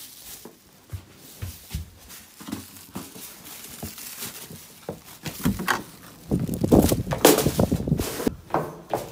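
Plastic garbage bags crinkling and rustling, with footsteps and small knocks. Then, about six to eight seconds in, a loud stretch of rustling plastic and thuds as a trash bag is flung into a bin.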